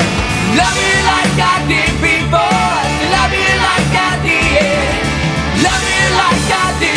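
Rock music: a full band with drums and a wavering high melody line, sung or played on lead guitar.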